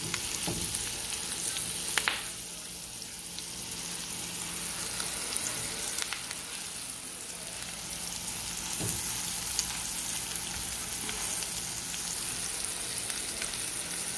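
Oil sizzling steadily in a cast-iron skillet as bread and chopped vegetables fry, with a few short knocks about 2, 6 and 9 seconds in, the first the loudest.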